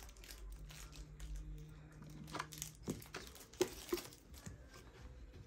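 Quiet handling of an unboxed toilet brush set: plastic packaging crinkling and a few sharp taps as the stainless-steel brush handle and its plastic holder are handled. The loudest tap comes about three and a half seconds in.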